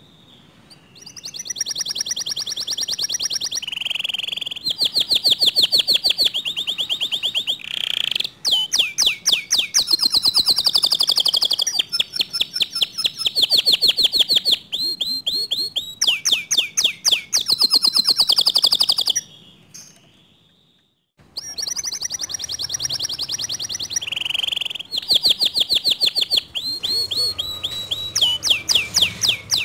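Domestic canary singing a full 'gacor' song: long runs of fast rolling trills and rapidly repeated high chirps, broken by a short pause about two-thirds through before it starts again. It is the kind of song used to set other canaries singing.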